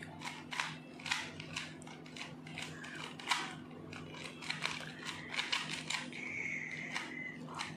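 Rapid plastic clicking and clacking of a small puzzle cube being turned by hand, layers snapping into place in quick irregular twists, over a steady low hum.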